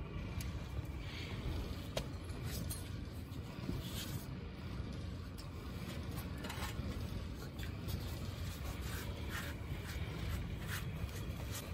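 Moulding sand being scraped and packed by hand around an aluminium pot pattern, with scattered light clicks and clinks from the perforated steel ring flask, over a steady low rumble.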